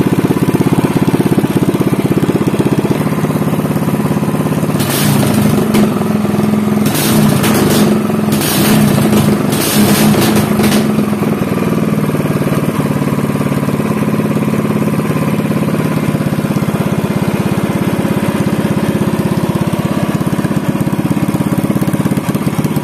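Motoyama SPE 500 Gold Marine 500 cc single-cylinder four-stroke engine running loud and steady through a short open exhaust pipe. Between about five and eleven seconds in there are a few short bursts of harsher noise.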